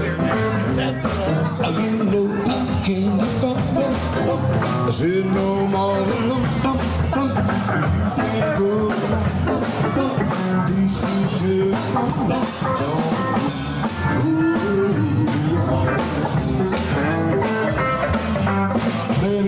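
Live band playing rock and roll: a voice singing over drum kit, electric guitar and keyboard.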